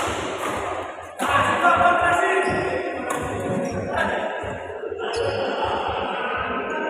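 Badminton rackets hitting a shuttlecock in a rally: sharp smacks about a second apart, ending near five seconds. Music with singing plays throughout.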